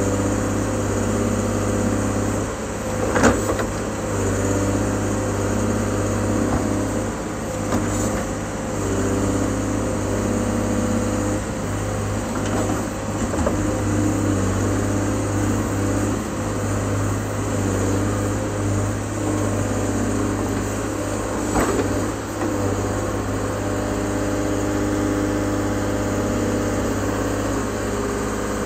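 A 125B excavator's diesel engine running steadily as its bucket digs sandy gravel from a deep pit. There are two sharp knocks, about three seconds in and again past twenty seconds.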